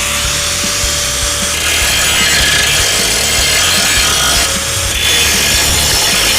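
Steady abrasive scraping, hand or tool rubbing against a hard surface, growing a little louder about two seconds in.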